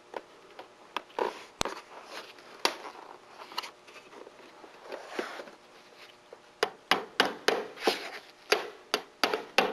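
Scattered light knocks of sheet-metal flashing being handled and fitted, then, about two-thirds of the way in, a quick run of hammer strikes, about three a second.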